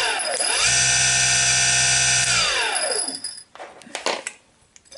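Bosch Rotak cordless lawnmower's electric motor, coasting down, then switched on again. It spins up quickly with a rising whine, holds a steady whine for about two seconds, then is switched off and winds down to a stop. The owner says that restarting it while it still coasts puts it into its faster 'overdrive' speed.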